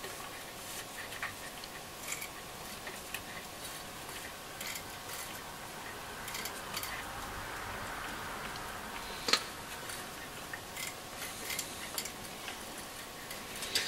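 Small clicks and light scraping of fingers working a transistor radio's tuning capacitor and dial drive, with one sharper click about nine seconds in.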